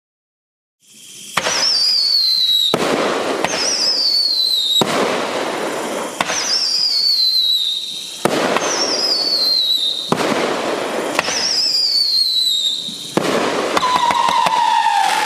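Magnus 'Midnight Howling' 500-gram firework cake firing: about a second in it begins a string of sharp shots, each followed by a warbling whistle that falls in pitch. Near the end a lower falling whistle comes with crackling.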